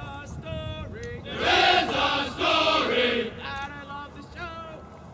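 Marching cadence sung call-and-response: a lead voice sings a line, the marching formation answers loudly in unison about a second and a half in, and the lead voice sings the next line near the end.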